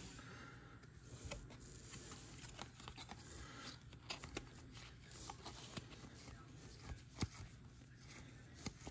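Faint handling of 2022 Topps baseball trading cards, sliding and flipping through a pack one at a time, with scattered light clicks and one sharper tick about seven seconds in.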